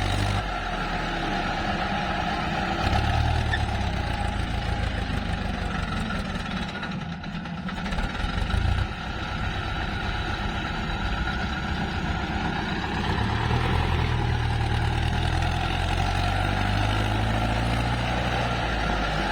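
Diesel engine of a working excavator running, its level rising and falling with the load. It dips briefly near the middle and swells again later on.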